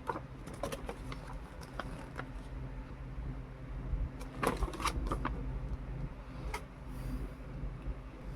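Hands handling action-figure packaging and parts: scattered light clicks and rustles, with a quick run of sharper clicks about halfway through, over a steady low hum.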